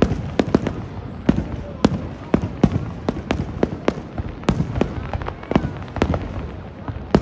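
Aerial fireworks shells bursting in a rapid, irregular series of sharp bangs, two or three a second, over a steady low rumble.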